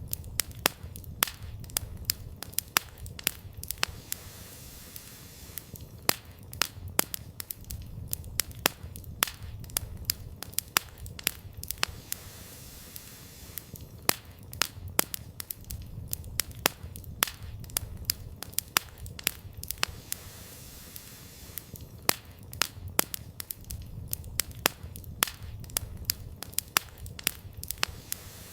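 Wood campfire burning, the firewood crackling with frequent sharp, irregular pops over a low, steady rumble.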